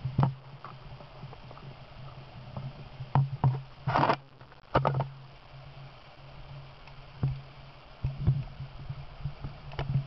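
Underwater sound in a river: scattered sharp clicks and knocks over a steady low hum, with a brief louder hissing burst about four seconds in.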